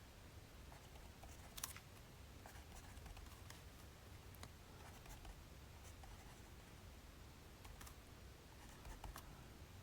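Faint scratching of a pen or pencil writing on paper, with a few light taps and clicks; the sharpest click comes about one and a half seconds in.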